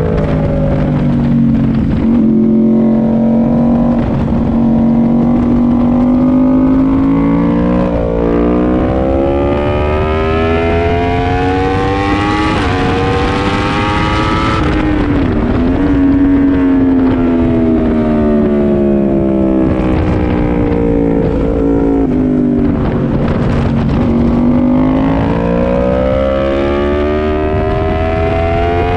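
Yamaha R1 inline-four sport bike engine at racing speed, heard on board with wind rush. The revs fall into a corner, climb through upshifts along the straight from about a third of the way in, drop sharply under braking just past the middle, then rise and fall through the next bends and climb again near the end.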